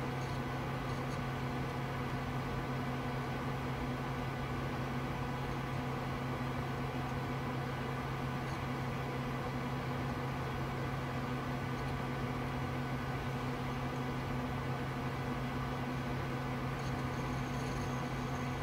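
Steady whirring hum of a running desktop PC's cooling fans, with a low drone and a few faint, steady whines above it.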